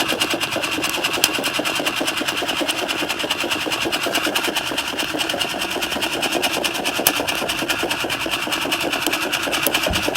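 Coffee beans rattling in a metal Sierra cup, shaken steadily over a campfire to roast them: a fast, even rattle of many small clicks.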